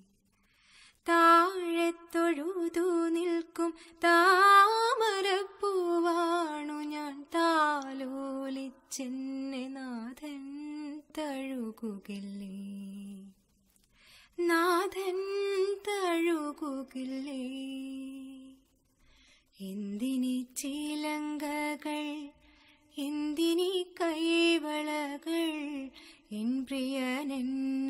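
A woman singing a Malayalam song solo, without accompaniment, in long ornamented phrases with pitch glides and vibrato, with two short pauses.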